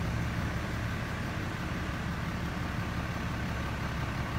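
Car engine running with a steady low hum.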